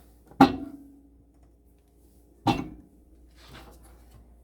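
Microwave oven door clunking, two sharp knocks about two seconds apart, the first with a short ringing tail.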